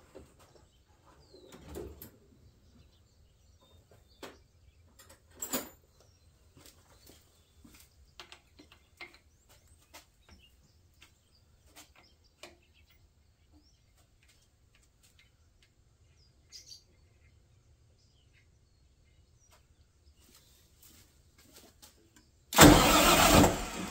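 Scattered metal clinks and clicks of a tool chest and a wrench being worked on a generator's fuel filter fitting, with a sharper knock about five seconds in. Near the end comes a loud rush of noise lasting about a second, much louder than anything else.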